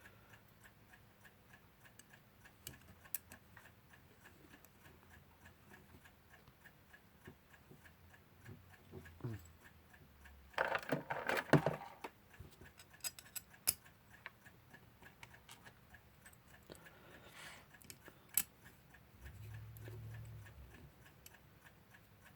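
A clock ticking steadily and fast in the background. About halfway through, small metal clock parts clink and clatter as they are handled.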